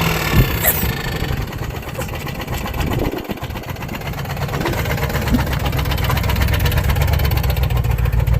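Lexus engine running with a rod knock: a rapid, regular knocking over the engine note, getting louder toward the end. A single sharp click about half a second in.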